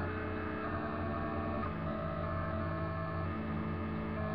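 Delta 3D printer printing, its stepper motors humming in steady tones that shift pitch every second or two as the print head changes moves.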